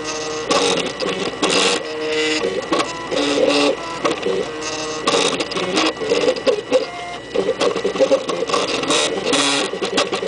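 MakerBot kit 3D printer's stepper motors whining through its moves while printing, in short pitched tones that jump to a new pitch every fraction of a second as the build platform shifts back and forth. A steady high tone runs underneath.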